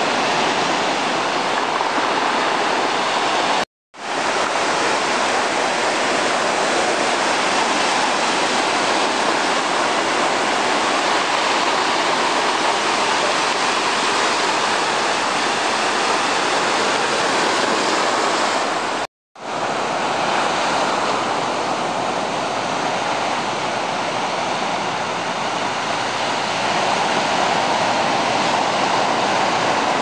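Sea waves breaking and washing onto a pebble beach, a steady surf noise. It drops out to silence twice, briefly: about four seconds in and again past the middle.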